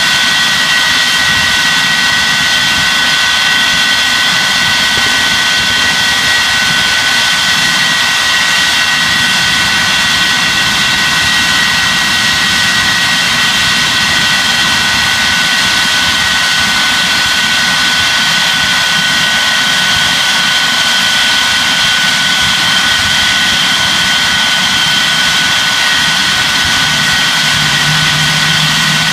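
Lightning jet's engine running steadily, a loud rushing noise with a constant high-pitched turbine whine. A low hum joins near the end.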